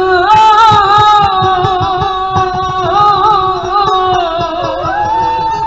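South Asian song, a voice singing an ornamented melody over plucked strings and drum strokes, played loud through a home theater speaker system as a sound test after an amplifier IC repair.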